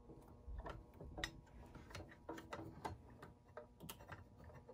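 Faint, irregular clicks and light rubbing of clear plastic tubing being handled and fed into the pinch valve in a milk sampler's stainless steel housing.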